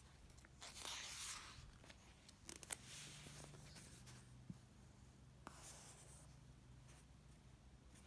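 Faint paper rustling in a few short swishes with small clicks, the sound of book pages being handled and turned, over a low room hum.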